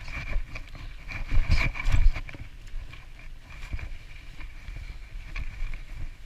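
Mountain bike rolling over tarmac and block paving: low tyre rumble and wind on the microphone, with the bike rattling and a steady high buzz. A few louder knocks come between one and two seconds in.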